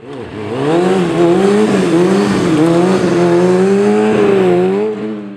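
Sport-bike engine held at high revs, its pitch wavering up and down with the throttle. It swells up over the first second and fades away near the end.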